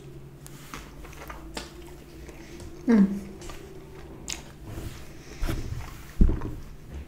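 Pizza being bitten and chewed close to the microphone, with many small wet mouth clicks. About three seconds in there is a short voiced sound falling in pitch, and near the end two low thumps.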